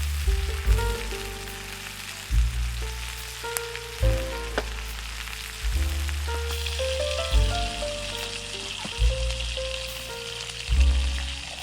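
Background music, a slow melody over bass notes struck about every one and a half seconds, laid over a steady sizzle of food frying that gets brighter about halfway through.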